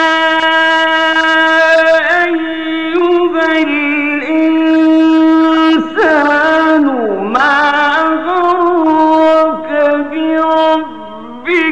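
A male Qur'an reciter's voice in slow, melodic mujawwad recitation, holding long notes with wavering ornaments. About six seconds in his pitch slides steeply down and climbs again. The level dips near the end as he pauses.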